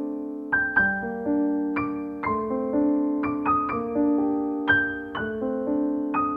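Background piano music: gentle notes struck about twice a second, each left to ring and fade.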